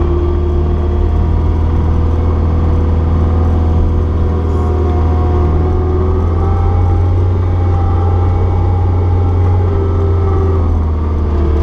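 Caterpillar 236B skid steer's diesel engine running steadily under work, its revs rising a little about halfway through and easing off near the end.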